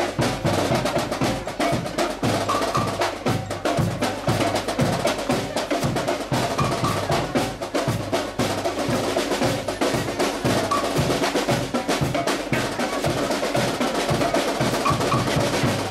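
Marching band playing a lively piece, with snare and bass drums keeping a steady, even beat under the wind instruments.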